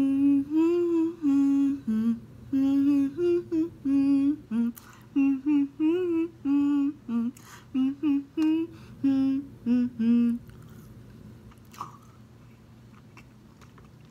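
A woman humming a melody, a run of short held notes with small pitch steps, for about ten seconds; it stops and a few faint clicks follow.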